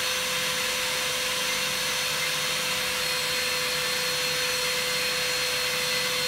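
Shop vac running steadily and a little loud, with a constant whine over its rushing air, pulling air down through a colander-and-cardboard-box cooling tray to cool freshly roasted coffee.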